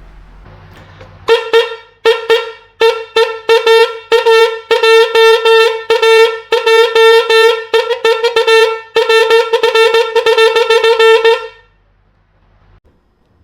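Homemade horn blown in a rapid series of short, loud toots on one unchanging note, about three a second for some ten seconds, then it stops.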